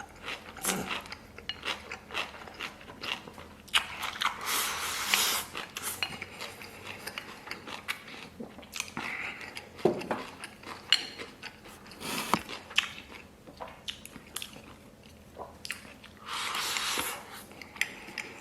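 A person eating close to the microphone: chewing and biting with many sharp wet clicks and smacks, and a few longer noisy bursts.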